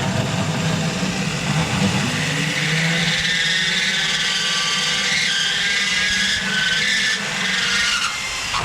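Electric drill spinning a rotary burr against the car body's sheet metal: a steady motor hum, joined about two and a half seconds in by a high scraping squeal as the burr grinds, which stops near the end. The burr skids about over the metal instead of biting cleanly.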